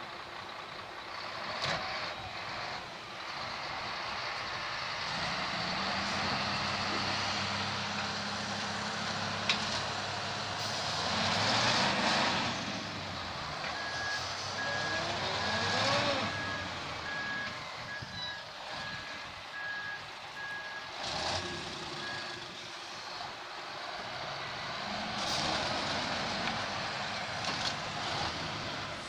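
Heavy diesel engines running and revving under load while a truck mired in mud is towed out. About halfway through, a reversing alarm beeps at a steady pace for several seconds.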